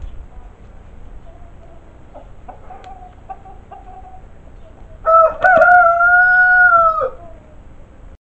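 Young chicken giving a few short soft clucks, then about five seconds in a single loud, drawn-out crow about two seconds long, held on one pitch and dropping at the end.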